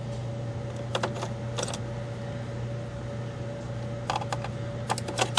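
Light clicks and taps of metal and plastic as a video card and its copper heat-pipe heatsink are worked loose inside a Dell XPS laptop: a few clicks about a second in and a cluster near the end, over a steady low hum.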